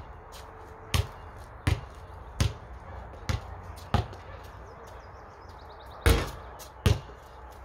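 A basketball being dribbled, bouncing five times about once every three-quarters of a second. About six seconds in comes a louder bang as the shot strikes the backboard, then one more bounce.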